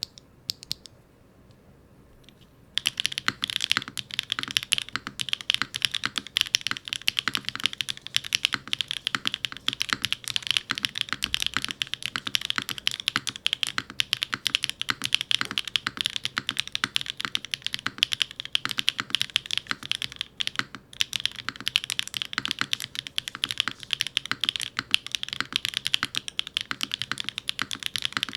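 Typing on a mechanical keyboard fitted with factory-lubed BSUN K1 linear switches (modified POM stems, polycarbonate top and fibreglass-filled PA66 bottom housings) in a Neo75 Cu case with an aluminium plate, hot-swap PCB and no foam. A few single key presses come first, then steady fast typing starts about three seconds in, broken by a short pause about two-thirds of the way through.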